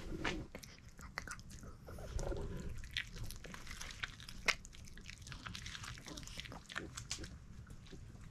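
Small dog chewing pieces of cooked steak: a run of quick, faint clicks and smacks, the loudest about four and a half seconds in.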